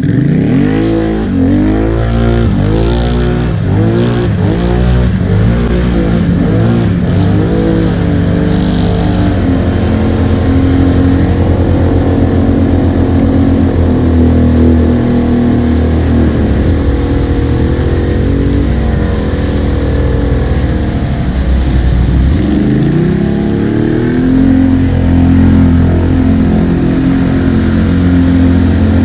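ATV engine revving in quick repeated throttle blips for the first several seconds, then running steadily as the quad pushes through deep floodwater, rising in pitch again about three-quarters of the way through. Water churns and splashes.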